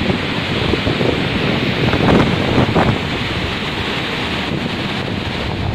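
Storm wind buffeting the microphone over the rush of heavy seas breaking aboard and washing across a ship's deck, with louder surges of water about two to three seconds in.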